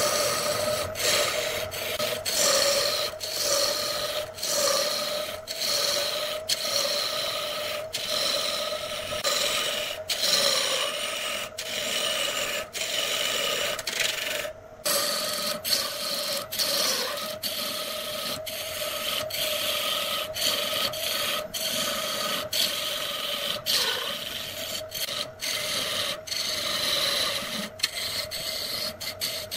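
A turning tool cutting into a wooden blank spinning on a wood lathe: a continuous rasping scrape over a steady hum, with a brief break in the cut about halfway through.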